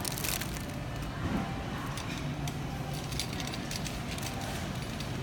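Grocery store ambience: a steady low hum with faint background noise. Brief crinkles and clicks near the start fit handling of cellophane-wrapped candy packages.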